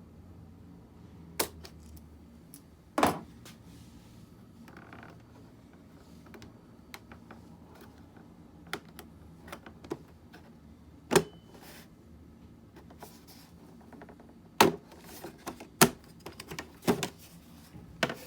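Irregular clicks and knocks of hand tools and parts being handled while an HP ENVY Recline 27 all-in-one computer is taken apart. The sharpest come about a second and a half in, three seconds in, eleven seconds in, and in a quick cluster near the end.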